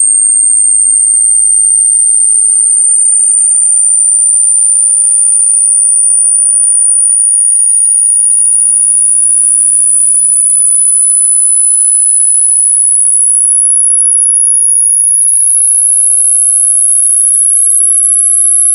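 Electronically generated sine tone, loud and very high-pitched, gliding slowly and steadily upward in pitch as a continuous frequency sweep.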